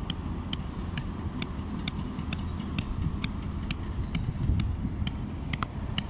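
Hammer tapping on metal with a regular beat of about two sharp, ringing taps a second, over a low engine rumble.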